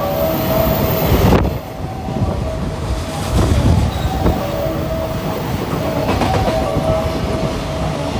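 A freight train's wagons passing through a station at speed: a loud, continuous rumble and clatter of wheels on the rails, with a thin steady tone that comes and goes.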